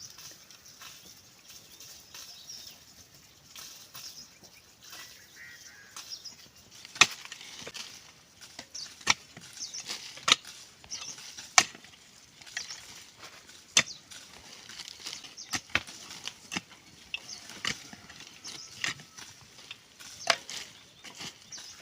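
A hand tool striking hard and repeatedly: sharp chopping knocks, one every second or two, beginning about seven seconds in and loudest over the next few strikes.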